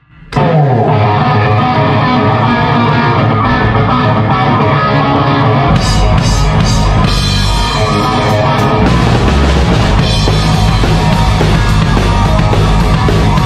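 Live heavy metal band playing: an electric guitar riff opens, and the drum kit and bass come in about six seconds in, driving a fast rock beat.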